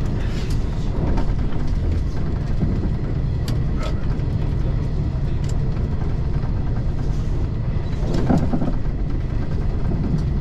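Running noise of a 381-series electric limited express train heard from inside the driver's cab: a steady low rumble with a few sharp clicks, and a short louder thump about eight seconds in.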